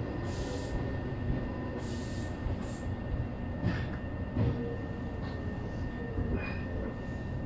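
Tobu 800 series electric train starting to move away from a station, heard from inside the cab: a steady low running rumble with two short hisses in the first few seconds.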